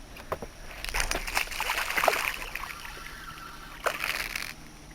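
Water splashing and sloshing for about three and a half seconds from a hooked ladyfish thrashing at the surface, loudest in the first couple of seconds, then dying away near the end.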